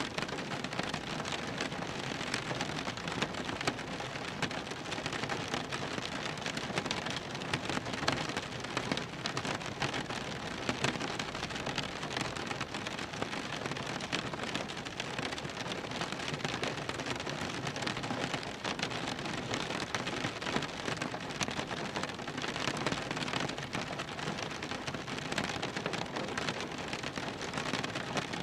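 Rain drumming steadily on a car's roof and windows, heard from inside the cabin: a dense patter of countless drops.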